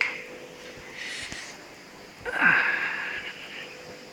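A person's breathy exhale, like a sigh, about two seconds in, over a faint steady hum.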